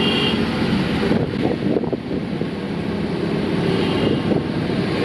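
Auto rickshaw engine running steadily on the move, with wind buffeting the microphone.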